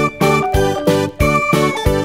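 Background music: a light children's tune of evenly repeating pitched notes over a steady beat.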